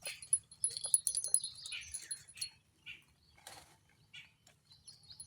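Metallic jingling and clinking, busiest in the first two and a half seconds, then a few scattered clicks, with some short high squeaks mixed in.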